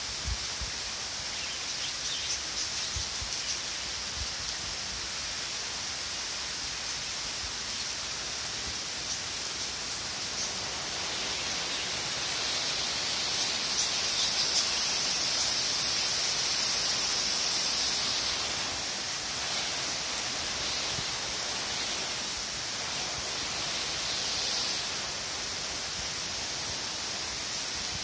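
Steady rain falling, an even hiss that swells slightly in the middle, with a few faint drip ticks in the first few seconds.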